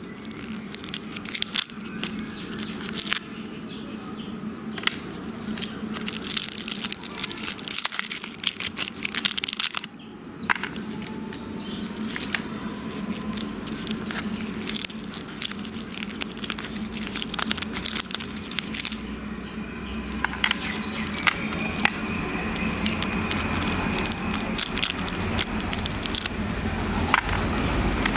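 Plastic toffee wrappers crinkling and crackling as they are untwisted and peeled off one sweet after another. The crackling comes in dense irregular runs.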